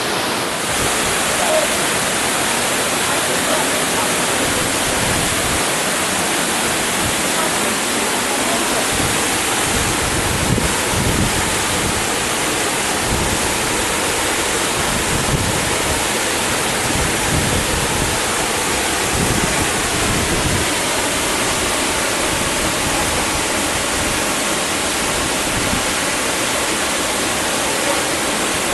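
Korbu waterfall's falling water: a loud, steady rush, with irregular low rumbling through the middle.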